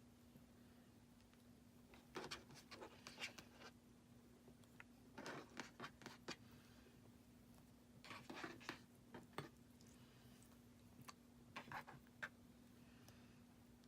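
Clear slime being squished and folded by hand as glitter is mixed in, making faint crackling and popping clicks in four short bursts about three seconds apart.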